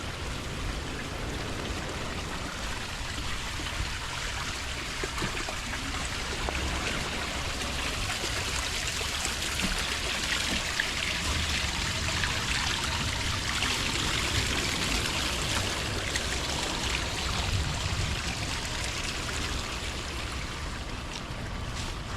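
Heavy rain falling steadily, growing louder around the middle and easing toward the end, with a low rumble underneath.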